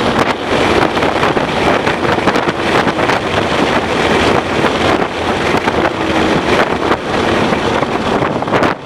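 2011 Ford Mustang GT's 5.0-litre V8 running hard at track speed, largely buried under heavy wind and road noise.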